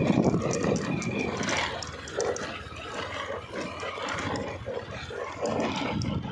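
Motorcycle engine running in fourth gear at low speed on a rough dirt track: an uneven rumble with rattling and knocking from the bumps.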